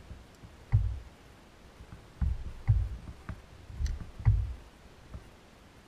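Six or seven short, dull knocks with light clicks on top, from handling in a plastic kayak while working a fishing rod and reel.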